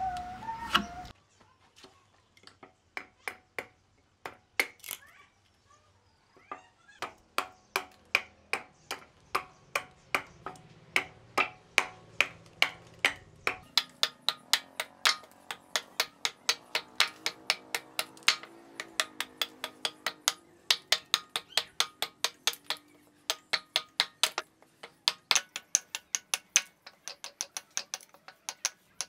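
Small hatchet chopping into a wooden stick held upright on a wooden block, hewing it to shape. A few scattered chops at first, then a steady run of quick sharp chops, about three a second, from about seven seconds in.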